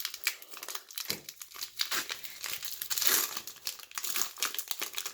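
Foil Pokémon booster pack wrapper crinkling as it is handled and torn open, a dense crackle that peaks about three seconds in.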